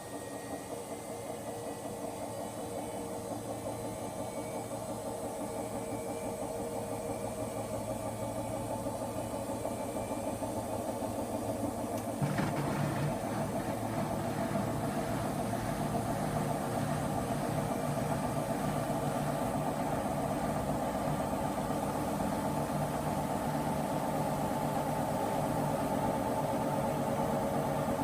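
Washing machine on its spin cycle, its motor and drum humming steadily and growing gradually louder, with a step up in pitch and level about twelve seconds in.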